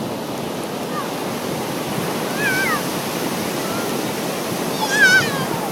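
Surf washing steadily on a beach. Two short, high, wavering cries rise above it, about two and a half seconds in and again, louder, near five seconds.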